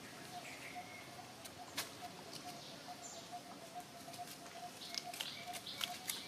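A bird repeats one short note, about three times a second, over quiet outdoor background. Light crackles and rustles of dry leaves come near the end as a baby monkey moves across them.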